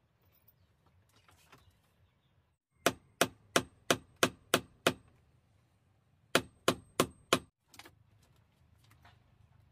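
Hammer driving a nail, ringing a little with each blow: seven quick blows at about three a second, a short pause, then four more.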